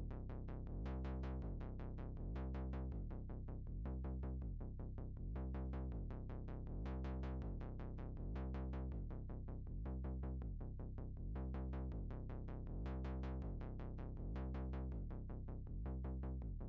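Electronic background music: a steady, evenly repeating beat, about two a second, over low sustained synth notes.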